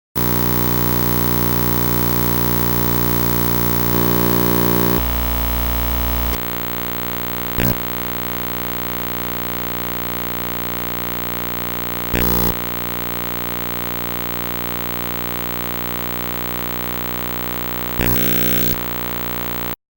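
TV static and glitch sound effect: a steady hiss with a buzzing electrical hum that shifts in tone a few times in the first six seconds, broken by short glitch bursts about eight, twelve and eighteen seconds in. It starts and cuts off abruptly.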